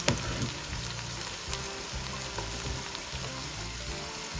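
Sliced okra sizzling steadily as it fries in hot olive oil with garlic and onion, with one sharp tap just at the start.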